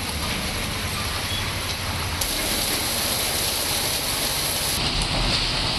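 Heavy rain falling on a waterlogged street, a steady hiss, with a vehicle's low engine rumble under it for the first two seconds or so.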